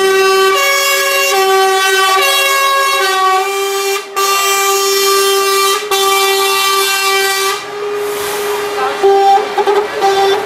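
Truck air horns blowing long, loud blasts of several tones together, the chord shifting now and then, with brief breaks about four and six seconds in and a few shorter toots near the end.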